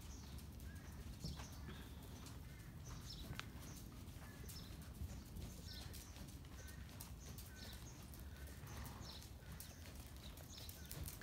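Faint hoofbeats of a half-Hanoverian, half-Arabian mare trotting on soft dirt arena footing, with small birds chirping.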